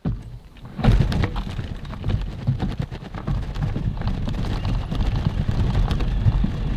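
Mountain bike riding over a rough gravel trail, heard from a handlebar-mounted camera: the tyres crunch and the bike rattles with a dense run of small knocks over a low rumble. The noise jumps up abruptly about a second in and stays loud.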